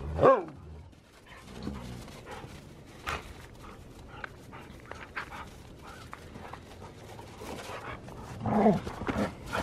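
Siberian husky and Alaskan malamute dogs play-fighting. A loud, falling bark-yelp comes just after the start, then scattered scuffling sounds, and a growly bark near the end.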